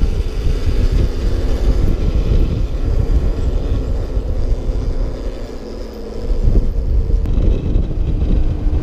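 Wind rushing over a helmet-camera microphone, mixed with tyre noise, as a dirt bike rolls along in a wheelie with its engine cut out. A faint steady engine drone sits underneath, and the rush eases briefly about six seconds in.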